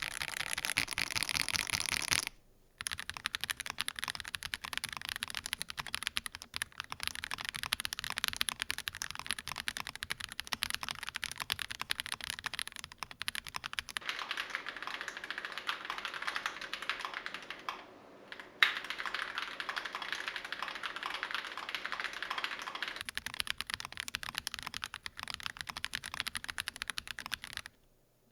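Typing on an Akko ACR Pro Alice Plus mechanical keyboard with lubed Akko CS Clear switches, ASA keycaps and lubed stock plate-mounted stabilizers. Fast, continuous keystrokes on the stock aluminium plate, then a brief break about two seconds in, after which typing continues on the stock polycarbonate plate. There is another short pause midway, and the typing stops near the end.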